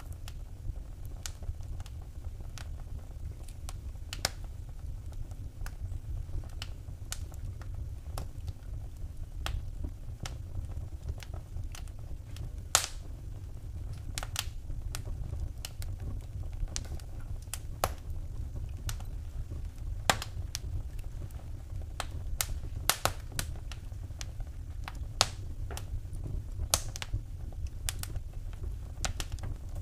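Wood fire crackling in a fireplace: irregular sharp pops and snaps, a few louder than the rest, over a low steady rumble.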